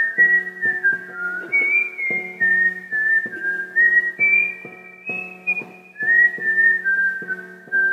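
A melody whistled in a single pure tone, stepping up and down in pitch, over a backing track with plucked strings on a regular beat.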